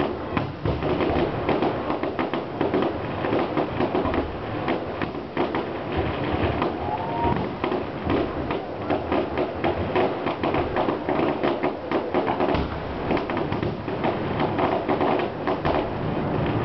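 Fireworks display bursting in rapid, continuous succession: many sharp bangs and crackles close together.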